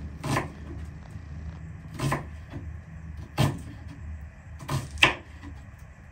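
Kitchen knife slicing onion on a wooden cutting board: five sharp knocks of the blade on the board at uneven intervals, over a low steady hum.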